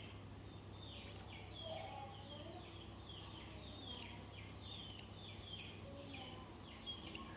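Faint bird chirping: a run of short, falling high-pitched chirps, about two a second, over a low steady hum.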